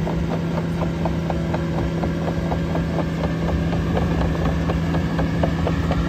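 Caterpillar AP655F tracked asphalt paver driving, its diesel engine running steadily with a quick, regular clicking from the crawler tracks over the hum.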